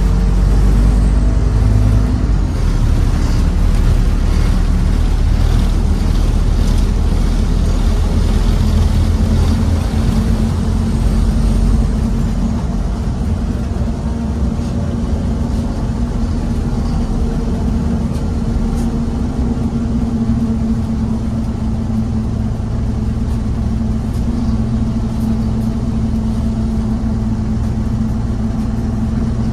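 Scania N230UB OmniCity bus's five-cylinder diesel engine and drivetrain heard from inside the cabin while the bus is under way. A heavy low rumble under load for the first ten seconds or so eases about twelve seconds in into a steadier running hum with a held tone.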